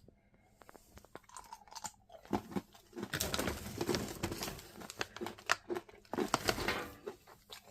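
A person biting and chewing chocolate-glazed cashews: close crunching, with a run of short crackly bites and chews from about two seconds in.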